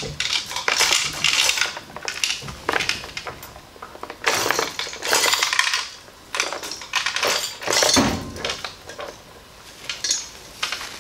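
Steel lifting chains on an engine hoist rattling and clinking in bursts as a V8 boat engine is lowered on them, with a heavier clank about eight seconds in.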